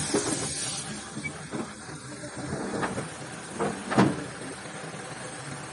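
Compressed-air paint spray gun hissing for about the first second, then stopping. A few short knocks and clicks follow, the loudest about four seconds in.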